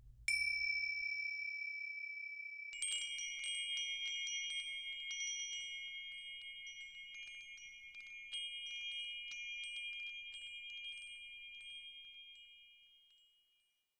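Chimes: one bell-like strike that rings on, then from about three seconds in a shimmering run of tinkling wind-chime strikes over held ringing tones. It all dies away gradually near the end.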